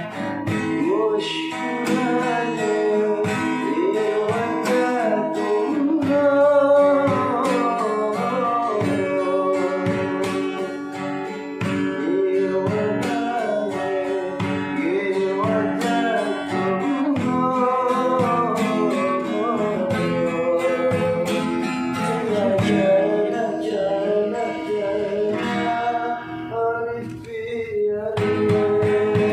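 Acoustic guitar being strummed and plucked, with a voice singing a melody over it.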